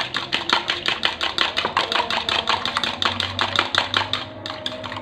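A fork beating a raw egg in a plastic bowl: rapid, regular clicking strokes, about six a second, of the fork hitting the bowl.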